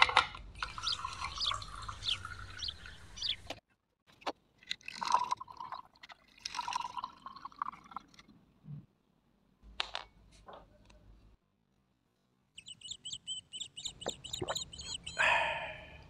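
Espresso from a ROK manual lever espresso maker dripping and pouring into a glass, in short clips separated by abrupt gaps, with light metallic clicks. A run of high chirps comes near the end.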